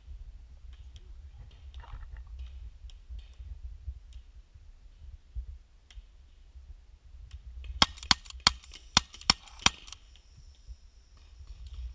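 A paintball marker firing a quick string of about eight sharp shots over roughly two seconds, about two-thirds of the way in, over a low rumble on the microphone.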